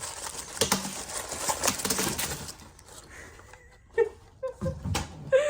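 Bagged Lego pieces being dumped out: a crinkling rush of plastic bags with many small plastic clicks in the first two seconds or so, then a few lighter clicks. Several short high chirps come near the end.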